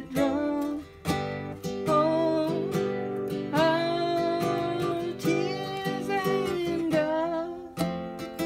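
A man sings while playing a nylon-string classical guitar, his voice holding long, wavering notes in the middle over the guitar's steady chords.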